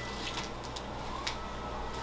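Quiet room tone: a steady low hum with a few faint ticks.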